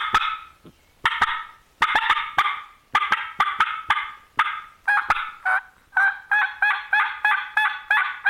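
Diaphragm mouth call imitating a wild turkey hen. It opens with irregular sharp, raspy cutting notes, then runs into a steady string of quick yelps, about five a second, each a clear front note breaking down into a raspy back note.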